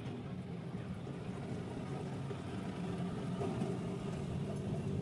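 Mercedes-Benz truck diesel engine idling steadily.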